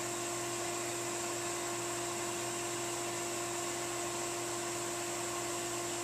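Okamoto 1224-DX surface grinder running idle: a steady hum with a fainter overtone over an even high hiss, unchanging throughout.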